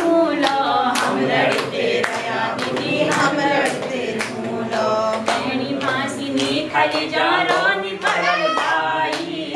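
A woman leads a Kumaoni folk song and a group of voices sings along in chorus. Hand-clapping keeps a steady beat.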